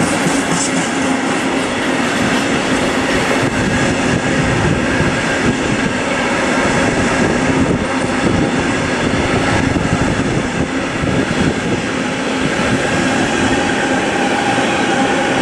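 Intermodal freight train of low wagons carrying semi-trailers rolling past. Its wheels run on the rails in a loud, steady rumble with a steady hum over it.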